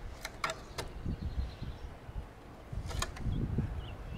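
Fillet knife tapping and cutting against a cutting board as small backbones are trimmed out of a trout fillet, a few sharp clicks near the start and again about three seconds in. A low rumble swells twice underneath.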